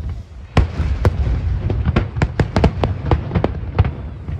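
Fireworks shells bursting in quick succession, sharp bangs with a dense run of crackling reports about halfway through, over a continuous low rumble of booms.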